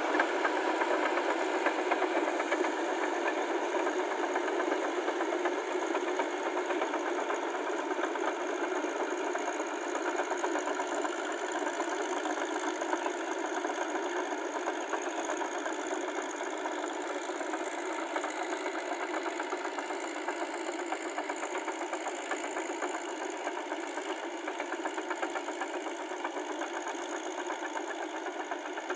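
Farm tractor's diesel engine running steadily under load as it drives on steel cage tracks and pulls a rotary tiller through the flooded paddy mud, with a rapid, even engine knock.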